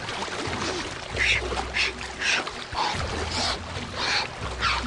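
A man breathing hard and fast in short, sharp gasps, about one every half second, while swimming in near-freezing glacial water, with water sloshing around him: the cold-shock gasping and hyperventilation that comes with sudden immersion in icy water.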